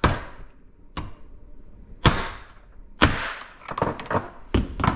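Hammer blows knocking a bicycle bottom bracket spindle out of its old, corroded press-fit bearing held in a bench vise. The sharp strikes come roughly a second apart, with lighter metallic taps and a brief ring between the last ones.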